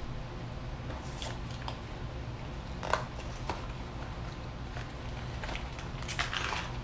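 Cardboard Oreo Wasabi box being handled and its end flap opened: scattered soft scrapes and clicks of paperboard, the sharpest about three seconds in and a cluster near the end, over a steady low hum.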